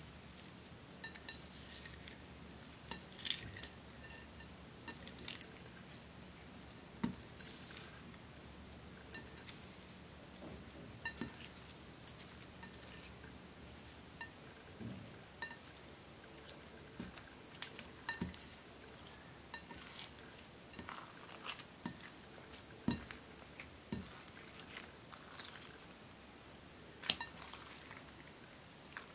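Loose glitter, sequins and small decorative pieces being stirred by hand through slime in a glass bowl: light, irregular clicks and clinks against the glass.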